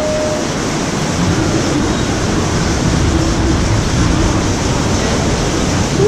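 Steady rush of white water tumbling through a river rapids ride's channel.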